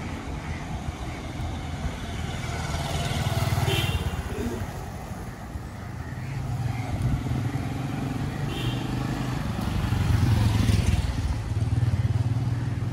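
Road traffic: motor vehicle and motorcycle engines running past in a steady low hum, swelling louder twice as vehicles go by.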